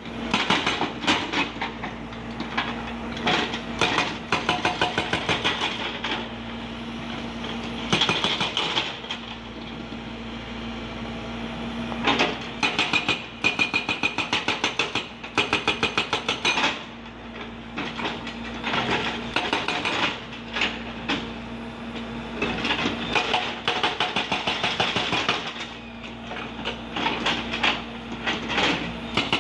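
Hydraulic breaker on a Hyundai Robex crawler excavator hammering rock and earth in rapid, evenly spaced blows, in bursts of a few seconds with short pauses between them. The excavator's diesel engine runs steadily underneath.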